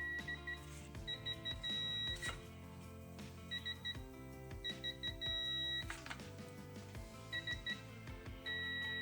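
Background music over a repeated electronic beep at one high pitch, coming in quick triplets of short beeps and long held tones several times, typical of a digital torque wrench signalling that it is nearing and then reaching its set torque on the engine's rod bolts.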